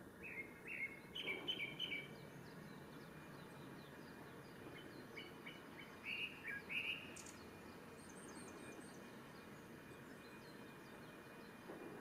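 Male Japanese thrush singing: two bursts of quick, varied whistled notes, one at the start and another about five seconds in, with a new phrase beginning near the end.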